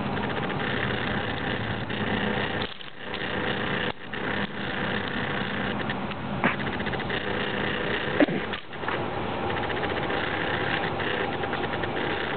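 A steady mechanical hum, briefly cutting out a few times, with a short sharp sound about eight seconds in.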